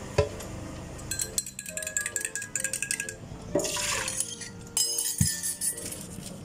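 Music with short, changing notes, with a few sharp clinks of cups or utensils and a brief burst of hissing noise about halfway through.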